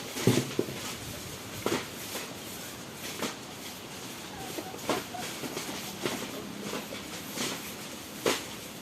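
Short scraping and knocking sounds of cleaning work, coming every second or two at an uneven pace, with the strongest hit just after the start.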